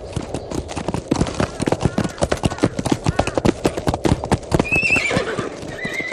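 Horses' hooves galloping in a dense, fast run of clip-clop strikes, with a horse whinnying briefly near the end.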